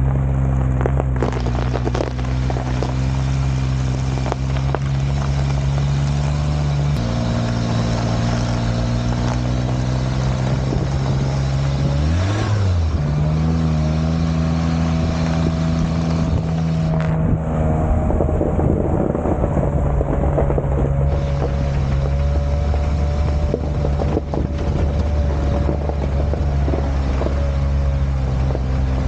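Daihatsu Hijet kei truck's supercharged 660cc engine running steadily under way. The engine note steps down about seven seconds in, and dips and picks up again near the middle.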